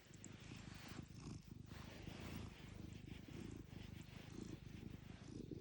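Domestic cat purring on a lap, a faint, steady rapid rumble that swells and eases slightly with its breathing.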